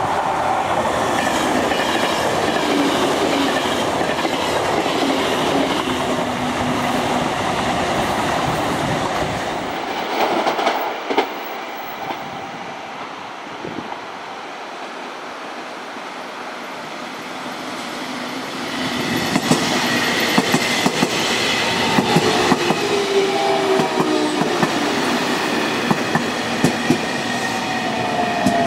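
JR Kyushu 813 series electric train running past: a steady rush of wheels on rail. After a cut, a quieter stretch builds as the train draws in. It closes with repeated wheel clicks over rail joints and a whine falling in pitch.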